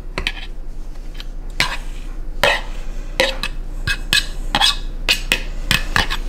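Metal fork scraping and tapping against the inside of a bowl in quick, irregular strokes, pushing steamed broccoli out onto a paper towel.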